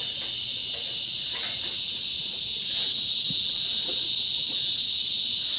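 A chorus of insects trilling steadily at high pitch, growing louder about three seconds in.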